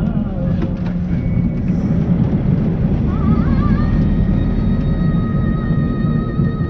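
Steady low rumble of a vehicle driving, heard from inside it. About three seconds in, a high tone joins; it wavers at first, then holds steady.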